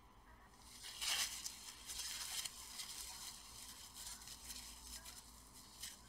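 Faint, intermittent rustling and scraping from a gloved hand handling parts. The loudest rustle comes about a second in, with another around two seconds in.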